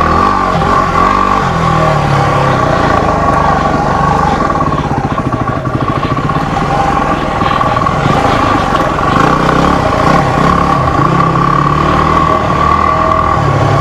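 Single-cylinder 250 cc dual-sport motorcycle engine running at low trail speed, its revs rising and falling as it picks its way over rough, rocky ground, with a steady high whine alongside.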